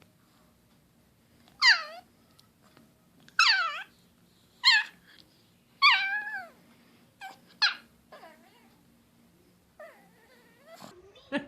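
Puppy giving about six high-pitched yelping cries, each sliding down in pitch, the last two close together.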